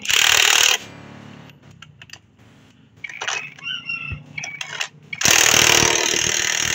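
Two loud bursts of a power tool, one under a second at the start and one about a second and a half long later on. Between them come scattered metallic clicks and clinks.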